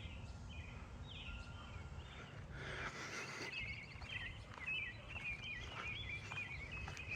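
American robins singing faintly: short slurred whistled phrases repeating throughout, over a steady low outdoor background hum.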